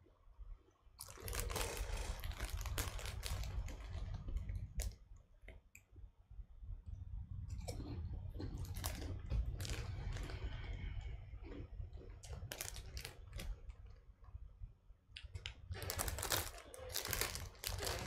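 Crunching and chewing of Monster Munch, a puffed baked corn snack, in several bouts of crackling bites with short pauses between.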